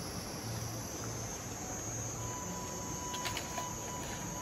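Steady chorus of crickets and other insects. A thin, steady high tone joins for about two seconds in the second half, with a few faint clicks.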